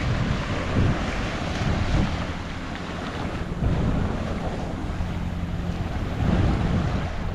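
Ocean surf washing over a shoreline reef, with wind buffeting the microphone in a heavy low rumble.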